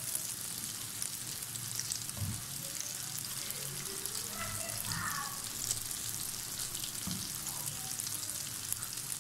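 Breaded egg fingers deep-frying in hot oil in a wok: a steady, dense crackling sizzle, with a wire-mesh skimmer moving through the oil to turn them.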